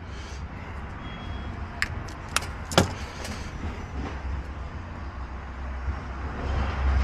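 Several short, sharp clicks and small knocks about two to three and a half seconds in, over a low steady rumble.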